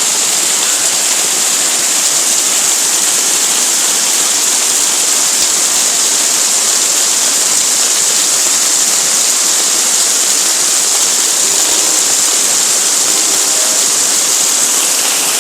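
Heavy rain pouring down in a steady, loud hiss, a downpour heavy enough to flood the garden and send runoff swirling across the road.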